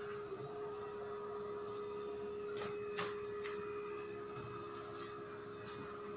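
A steady machine or electrical hum with a constant tone, with a few short clicks and taps, the clearest about three seconds in.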